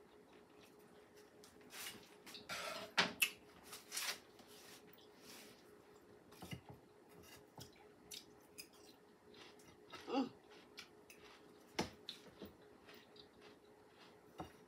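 Quiet clicks and scrapes of a knife and fork on a plate as a pork chop is cut, loudest about two to four seconds in, over a faint steady hum. A brief hummed voice sound comes about ten seconds in.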